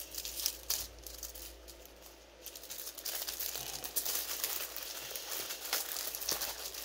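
Clear plastic packaging bags crinkling and rustling as they are handled, with many small crackles, busier and louder from about three seconds in.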